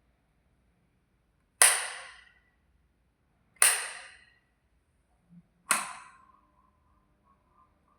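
Light switch flicked three times, about two seconds apart, each a sharp loud click with a short ringing tail. A faint steady tone lingers after the third click.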